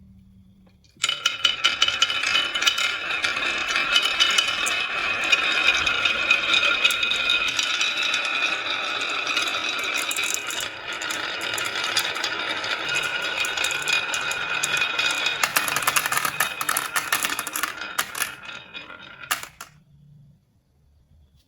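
Many marbles rolling and clattering down a marble-run track in a dense, continuous rattle that starts about a second in and dies away near the end.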